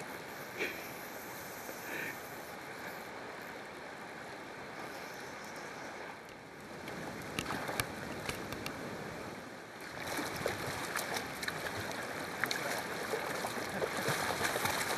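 Steady rush of river water flowing over a rocky bed. It grows louder about ten seconds in, with scattered small clicks.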